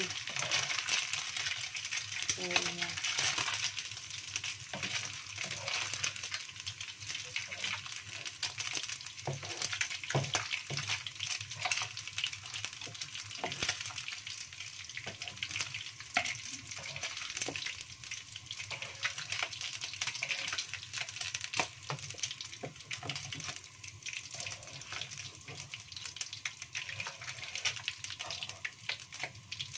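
Hot oil sizzling steadily as small dried anchovies (teri) fry in a wok until golden. A wooden spatula stirs and scrapes, and a wire strainer ladle lifts the fish out to drain, giving frequent small clicks and knocks against the pan.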